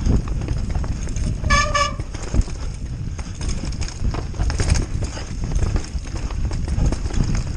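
Mountain-bike disc brakes squealing twice in quick succession about a second and a half in, a short pitched squeal, over the steady rumble and rattle of the bike on a snowy, rooty trail. The riders say the brake squeal gets worse every day and today comes from both front and rear brakes.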